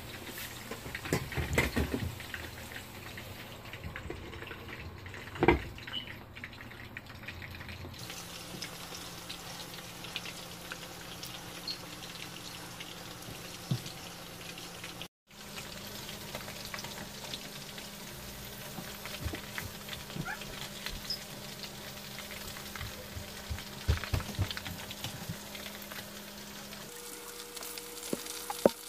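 Chicken pieces deep-frying in hot oil in a pan: a steady sizzle with scattered pops and crackles, broken once by a brief gap about halfway through.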